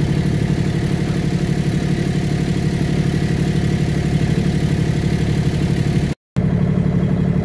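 A boat's motor running steadily at a constant speed, a low, fast-pulsing hum. The sound cuts out for a moment about six seconds in, then resumes.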